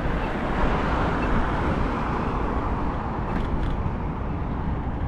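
Wind buffeting a GoPro microphone during a ride on an electric scooter, with tyre and road noise underneath. The wind swells about a second in, then settles into a steady rush.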